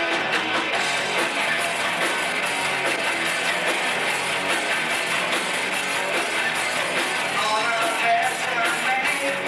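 Live rock band playing: electric guitars strumming over bass and drums at a steady drive.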